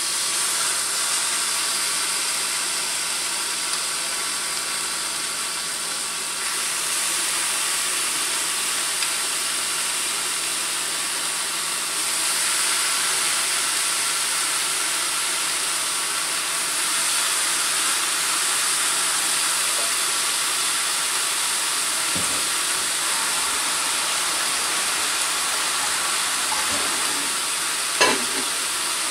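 Barbecue-marinated chicken breast fillets sizzling steadily on the hot griddle plate of a smokeless table grill, with one sharp tap near the end.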